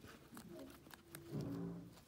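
Guinea pigs chewing a dandelion leaf, fine crisp crunching clicks. About a second in, a low pitched hum with several steady tones rises over the chewing and is loudest near the end.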